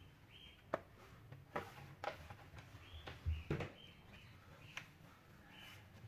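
Faint, scattered taps and knocks from hands pressing and smoothing a PVC wall panel into place, with a few short high chirps between them.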